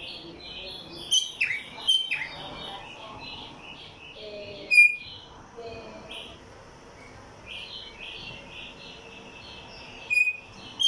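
A caged songbird, the tumba yegua, singing: quick runs of high chirping notes broken by a few loud, sharp notes that slide down in pitch, the loudest about a second in, near two seconds, near five seconds and near the end. There is a quieter stretch in the middle.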